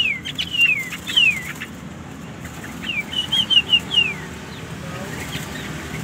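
Opior white-eyes calling in a cage: clear whistled notes that slide down in pitch, several in the first second and a half, then a quick run of short repeated notes and another falling whistle about three to four seconds in, with a few light clicks.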